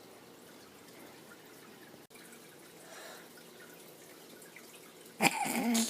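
Faint room tone, then a short, louder voice-like sound near the end.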